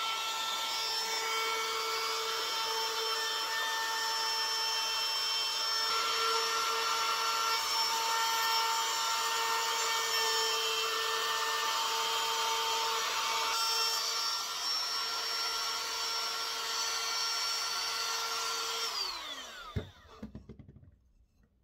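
Ryobi cordless trim router running at full speed with a steady high whine as it routes the edge of a maple mallet handle. About 19 seconds in it is switched off, and the whine falls in pitch as the bit spins down.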